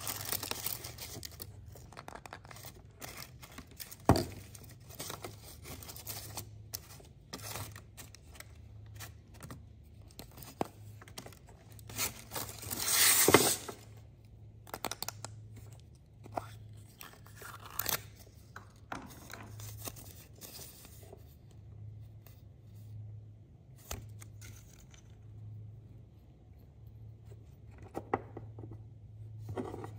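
Foil wrapper crinkling and tearing as it is peeled off a chocolate egg, with a louder crackling crunch about 13 seconds in. After that come sparser small clicks and taps of plastic being handled and set down on wood.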